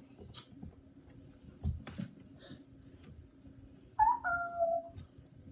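A short high-pitched whimper like a puppy's, about four seconds in, stepping down in pitch twice over about a second; before it, scattered small clicks and taps.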